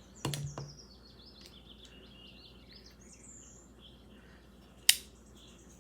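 Small birds chirping faintly and repeatedly in the background, with a short knock just after the start and one sharp click about five seconds in, the loudest sound.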